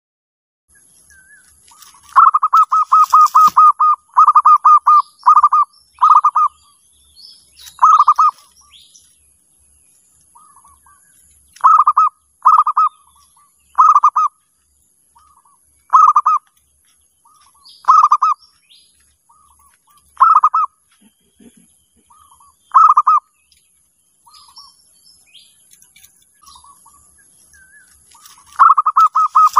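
Zebra dove (perkutut) cooing: short bursts of quick staccato coo notes repeated every second or two, with softer notes between them. A longer unbroken run comes a couple of seconds in, and another starts just before the end.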